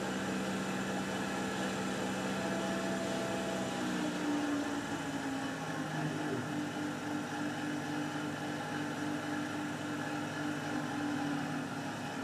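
Tormach 8L CNC lathe running a slow finishing pass on an aluminium part: a steady machine hum with a few held tones, which step up in pitch about four seconds in.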